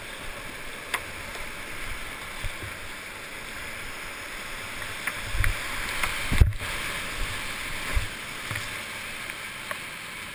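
Whitewater rushing around a kayak running a rapid, heard through a helmet-mounted GoPro camera, with scattered knocks and splashes against the boat and camera; the loudest knock comes about six and a half seconds in, as the boat drops through the white water.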